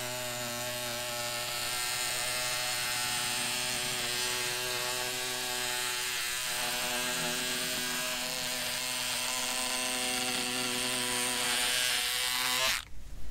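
A cordless electric fabric cutter's small motor runs at a steady pitch while its blade shears through fiberglass chopped strand mat, with a hiss of cutting above the motor. It stops abruptly near the end.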